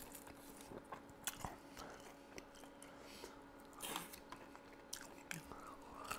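Quiet sounds of a person eating chicken wings: chewing with scattered small clicks and mouth smacks, a slightly louder cluster about four seconds in.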